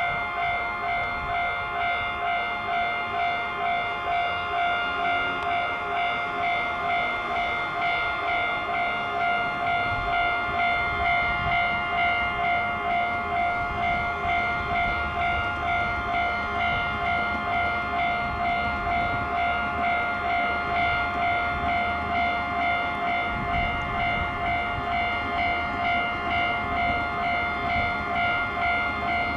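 Japanese level-crossing alarm of the old JNR type ringing continuously as a fast, even electronic ding-ding, several tones sounding together. Its throbbing, warbling 'bafu-bafu, uho-uho' undertone is one the uploader suspects comes from the crossing's far speaker. A train's low running sound joins beneath it from about ten seconds in.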